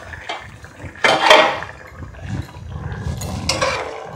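Metal pan lid lifted off a kadai and set down with a clatter about a second in, then a metal spatula stirring and scraping in the pan near the end.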